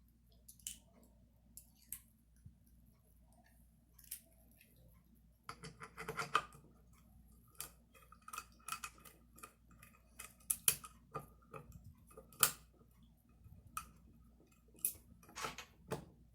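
Scattered clicks and clinks of small screws and metal parts being handled and fitted together during assembly, with a denser clatter about six seconds in.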